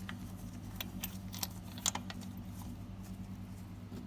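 A few light metallic clicks as a spark-plug socket is handled and seated on the plug, over a steady low hum.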